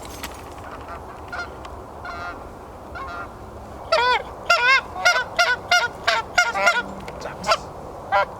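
Geese honking: a few faint calls, then from about four seconds in a rapid, loud run of honks, some overlapping.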